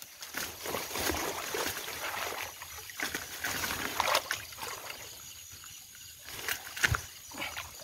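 Wet leaves and branches rustling as metal snake tongs are pushed through a bush, with water sloshing around the wader, and one sharp click about seven seconds in.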